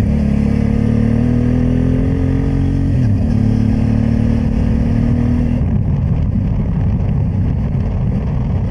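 Honda Transalp 600's V-twin engine running as the motorcycle rides a gravel track, its pitch rising under throttle and then dropping about three seconds in. About halfway through, the engine note gives way to a rough, low rumble of wind and road noise.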